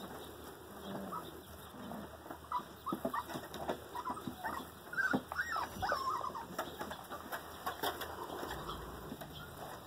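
Five-week-old Rottweiler puppies giving short squeaks and whines, most of them about five to six seconds in, among light taps and scuffles of paws.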